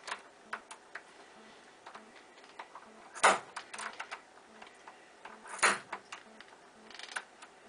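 A bump key in a Schlage deadbolt struck sharply twice with the blunt end of a nail set, about two and a half seconds apart, with light metallic clicking of the key and lock between the strikes. The lock does not open.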